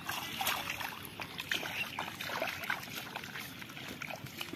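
Bare feet wading through shallow water over mud in a flooded rice paddy: irregular splashing steps and sloshing water.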